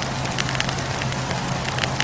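Wood fire crackling, with frequent short, sharp pops and snaps of burning logs over a steady hiss and a low, even rumble of the flames.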